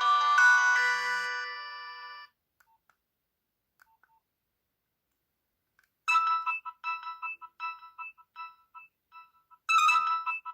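Nokia 6030 mobile phone playing polyphonic ringtones through its small speaker. A chiming melody fades out in the first two seconds, followed by a few seconds of near silence with faint clicks. About six seconds in a different ringtone starts: a quick pattern of short beeping notes that begins again about three and a half seconds later.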